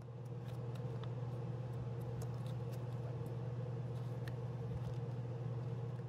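A steady low hum with a second, higher hum line above it, and faint scattered clicks from a plastic ignition-coil connector being handled and pushed home on the engine.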